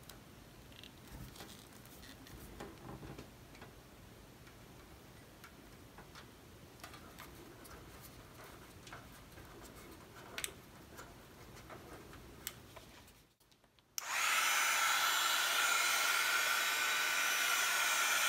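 Faint small clicks and handling sounds of wires being soldered onto switch terminals. About fourteen seconds in, a heat gun comes on and blows steadily, a loud rushing with a steady whine, shrinking heat-shrink tubing over the soldered power-cord joints.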